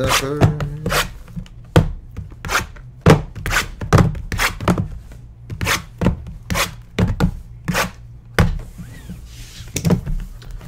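Shrink-wrapped cardboard hobby boxes being handled and set down on a desk one after another: a run of sharp knocks, about one or two a second, with some rubbing of the wrap.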